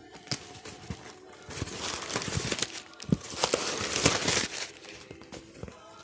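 Plastic packaging crinkling and rustling as it is handled, with many sharp crackles. It grows louder about a second and a half in and dies down after about four and a half seconds.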